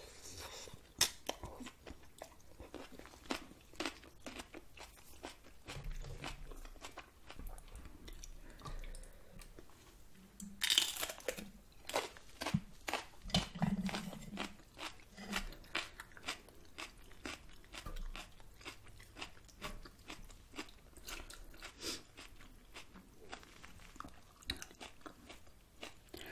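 Close-miked eating: a person chewing and crunching a mouthful of noodle soup with vegetables, with many irregular soft clicks and crackles and one louder noisy sound about eleven seconds in.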